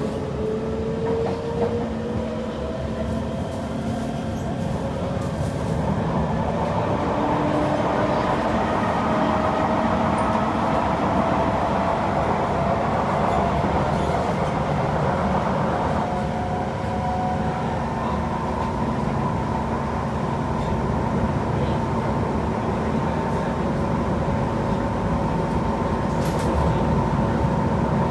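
Kawasaki C151 train's traction motors whining, the pitch rising through the first several seconds as the train accelerates, then settling into a steady whine at speed over the rumble of the wheels on the track.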